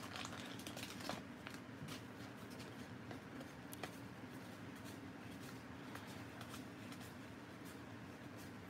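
Faint handling of a stack of 1989 Donruss baseball cards as they are thumbed through one by one, with a few soft clicks of card edges, most in the first few seconds, over a steady low background hum.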